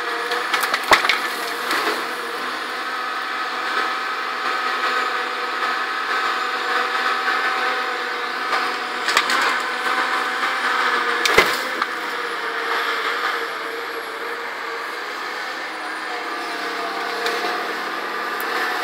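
Cat 523B tracked feller buncher's diesel engine running steadily under hydraulic load, broken by a few sharp cracks of wood snapping as its felling head grabs and shoves felled trees. The loudest cracks come about a second in and a little past the middle.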